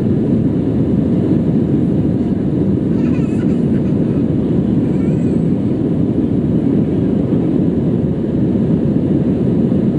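Steady roar of an Airbus A319's engines and airflow heard inside the cabin over the wing during the climb after takeoff.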